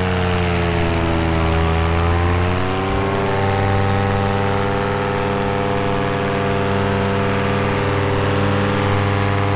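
Polini Thor 202 single-cylinder two-stroke paramotor engine and propeller running in powered flight. The engine note sags slightly in pitch over the first few seconds, then holds steady.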